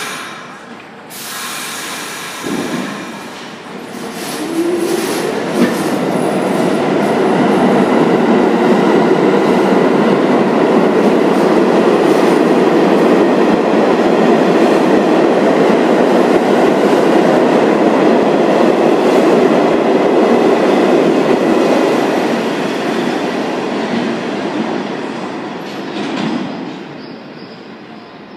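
R46 subway train pulling out of the station and running past: a short rising motor whine as it starts, then wheel-on-rail noise that builds, holds loud for about fifteen seconds and fades as the train goes down the tunnel.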